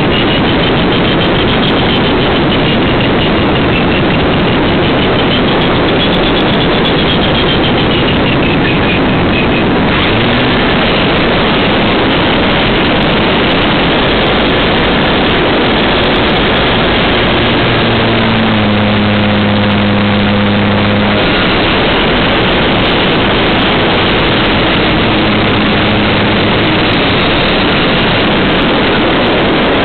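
Loud, steady rush of wind and propeller-engine noise from a PZL-104 Wilga 2000 light aircraft with a Lycoming O-540 engine, coming in to land. A wavering high whine runs through the first third, and a few steady low engine tones stand out about two-thirds of the way in.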